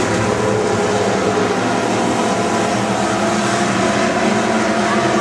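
A pack of dirt-track stock cars racing, with several engines running at once, steady and loud.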